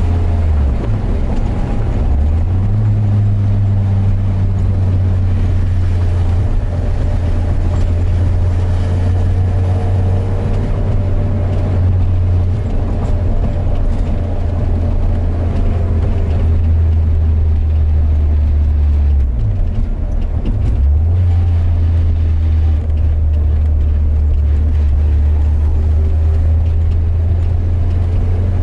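Porsche 968's 3.0-litre four-cylinder engine running hard under racing load, heard from inside the cockpit over wind and road noise. Its note drops and climbs back at about a second in and again about twenty seconds in, as at gear changes.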